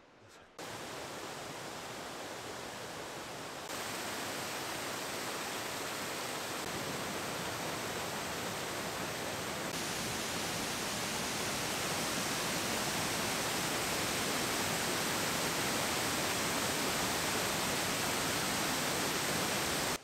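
River waterfall in heavy flow: a steady rushing of falling water with no pitch or rhythm in it. It gets louder in steps about 4 and 10 seconds in and cuts off suddenly at the end.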